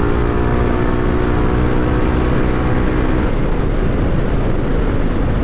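Yamaha NMAX 155 scooter's single-cylinder engine pulling under throttle through a gutted stock muffler. Its note climbs, holds steady, then fades about three seconds in, over heavy wind rumble on the microphone.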